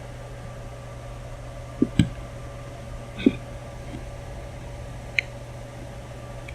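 Lennox gas furnace running with its burners just lit, a steady hum with a faint high tone: it is lighting normally on a replacement control board. A few short clicks and knocks stand out over it, two close together about two seconds in.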